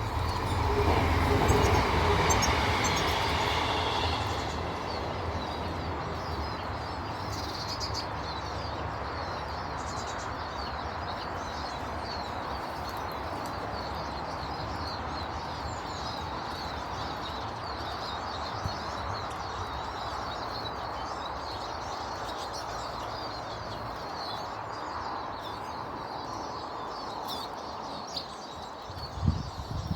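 Many small birds chirping continuously over a steady rushing background noise, with a louder rumbling swell in the first four seconds and a couple of knocks near the end.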